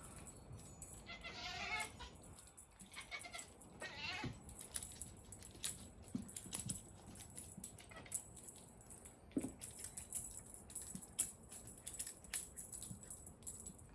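A cat meowing twice, two long drawn-out calls in the first few seconds, with scattered light taps and knocks throughout.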